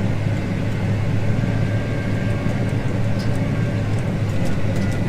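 Large farm tractor's diesel engine running steadily under load, pulling a disc through field ground, with a few faint clicks in the second half.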